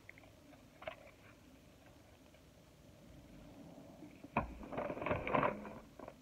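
Movement and handling noise: a sharp knock about four seconds in, then about a second of rustling and shuffling as someone moves about holding a handful of trading cards.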